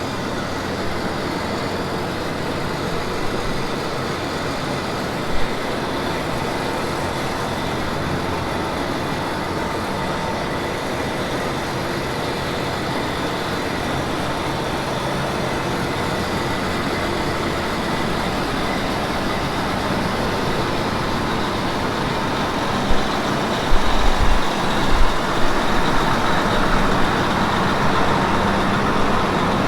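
Combine harvester running steadily on the move, an even engine drone with a constant whine over it. A few low thuds come a little over 20 seconds in.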